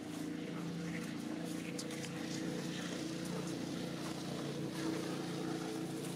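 An engine running steadily at an even pitch, with a few faint clicks over it.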